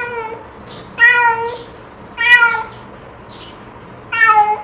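Domestic cat meowing: three short meows, with a longer gap before the last, after the end of another as the sound begins.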